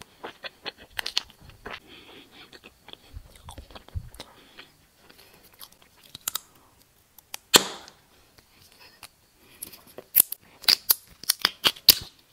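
Close-miked chewing and biting of gummy candy balls: wet, sticky mouth clicks and squishes. One loud sharp click comes about seven and a half seconds in, and a quick run of crisp clicks near the end.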